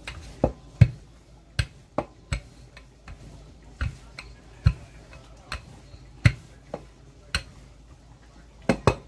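Rolling pin working a sheet of bread dough on a countertop, with about a dozen sharp, irregularly spaced knocks and clacks as the pin and its handles strike the counter.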